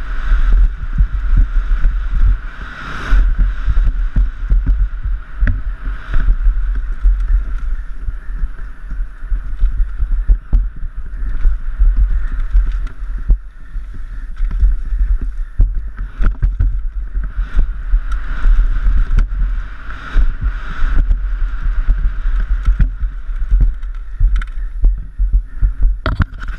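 Wind buffeting the microphone of a helmet-mounted action camera on a fast downhill mountain-bike run, with the Giant Glory downhill bike's tyres rolling over dirt and gravel and the bike knocking and rattling on every bump.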